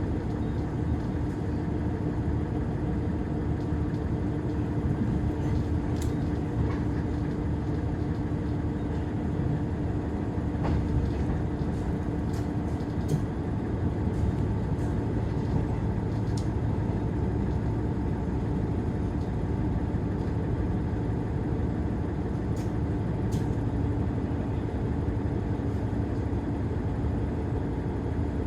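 Diesel railcar running along the line, heard from inside: steady engine and wheel-on-rail noise with a constant hum and a few light clicks. A deeper hum joins about halfway through.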